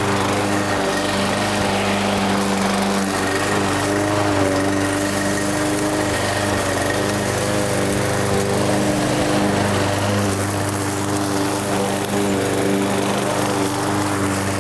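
Lawn mower engine running at a steady speed.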